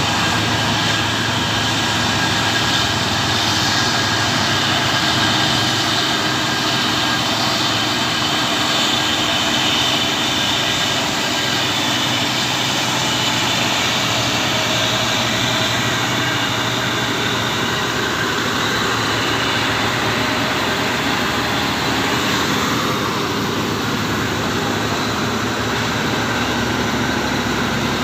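Heavy diesel truck engines running steadily under load on the climb, a low engine note with a high whining hiss over it that eases slightly near the end.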